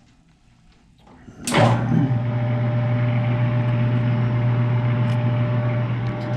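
Bench metal lathe switched on with a click about a second and a half in. Its motor and gear drive then run with a steady hum, the spindle turning slowly for single-point thread cutting.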